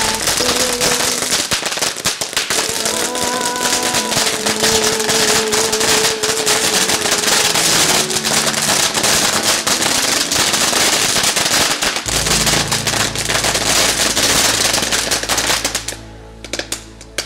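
A long string of firecrackers going off in a rapid, continuous crackle, thinning to a few scattered pops near the end, over background music.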